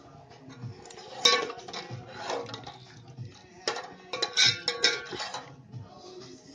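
A steel ladle clinking and scraping against the inside of a metal pot while stirring thin, watery curry gravy, with a couple of knocks about a second in and a quick run of clinks around four to five seconds in.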